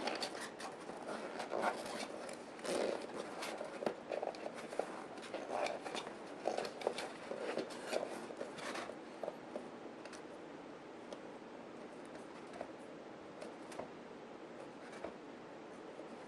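Hands working a rubber RC tire and its foam insert down into the bead groove of a beadlock wheel: irregular rubbing and rustling with small clicks. It thins out after about nine seconds to a few faint clicks.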